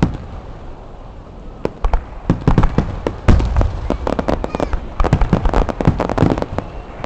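Fireworks going off in a rapid run of sharp cracks and bangs, starting about a second and a half in and continuing almost to the end.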